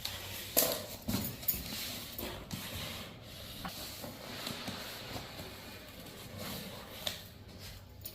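Packaging being handled as an electric kettle's box is opened: a steady rustling and rubbing, with a few sharp knocks in the first second and a half and another about seven seconds in.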